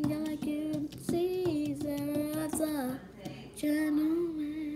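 A girl singing solo, holding long drawn-out notes with a few small bends in pitch and a short break about three seconds in.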